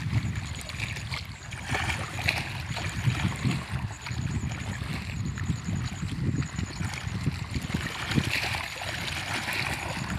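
Wind buffeting the microphone, with water lapping and gurgling at the reservoir shore.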